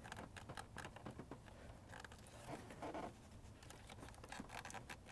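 Faint, scattered small clicks and scratches of fingers working the plastic locking clip on the EVAP purge vapor-line connector.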